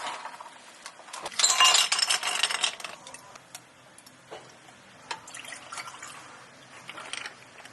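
Drink-making sounds at a cafe counter: glassware clinking with liquid or ice. A dense clatter starts about a second in and lasts about a second and a half, followed by scattered clinks and knocks and a softer rustle of clatter near the end.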